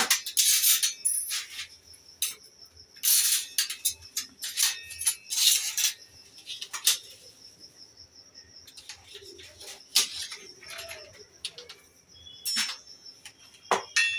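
Steel kitchen utensils clinking and scraping against a wall-mounted utensil rack as they are handled, in irregular clatters with a quieter stretch in the middle.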